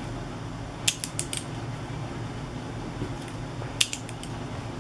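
Tombow Reporter 4 compact four-colour ballpoint pen clicking as its ink colours are selected: a quick run of sharp clicks about a second in and another short run near the end.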